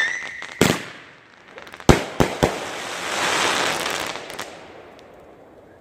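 Consumer fireworks going off: a bang, then three sharp cracks about two seconds in, followed by a crackling hiss that fades away.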